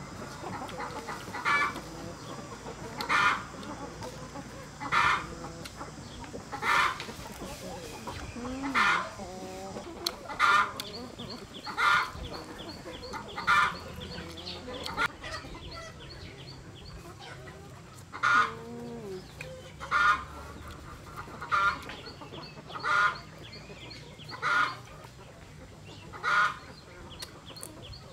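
Chickens clucking: short, sharp clucks every second or two, with a few lower gliding calls mixed in.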